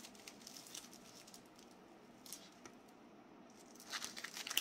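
Faint handling noise from a folded nylon-strap tourniquet and a vacuum-packed SWAT-T tourniquet being held together in the hands: soft rustling with a few light taps and clicks. A short burst of louder rustling and tapping comes near the end as they are moved apart.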